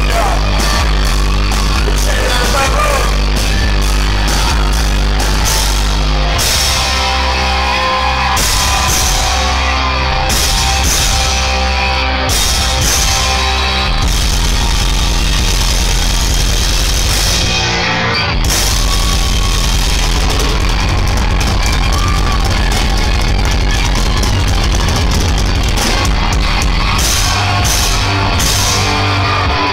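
A live rock band plays loud, with electric guitars, a bass guitar and a drum kit going at full tilt, and the sound fills the hall. About eighteen seconds in the top end drops out for a moment, then the full band comes back in.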